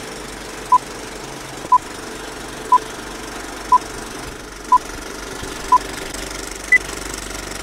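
Film countdown leader sound effect: a short beep once a second, six in a row, then one higher-pitched beep near the end. Under it runs a steady mechanical rattle and hiss.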